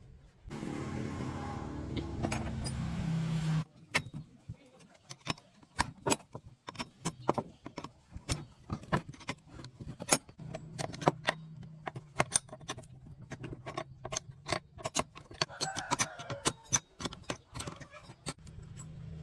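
Small metal tools and parts clinking and clicking irregularly as they are handled during repair work, after about three seconds of steady humming noise at the start.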